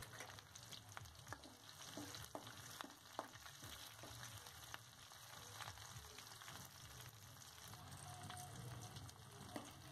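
Sliced onions sizzling faintly in hot coconut oil in a kadai, with scattered small pops and clicks, and a steel spoon scraping the pan as they are stirred.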